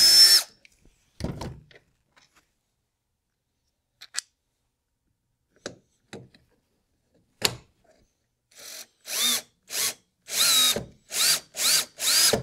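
Cordless drill finishing a hole in the kayak's mounting board, its motor whine rising and cutting off just after the start. A few light clicks and knocks of parts being handled follow. From about two-thirds of the way through, the drill runs in short trigger bursts, roughly two a second, each a brief rising whine, driving a bolt into the rear mounting plate.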